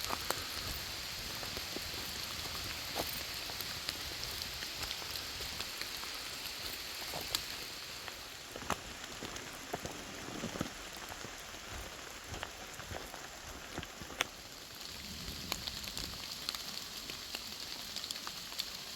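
Steady heavy rain, with scattered sharp taps of drops landing close by.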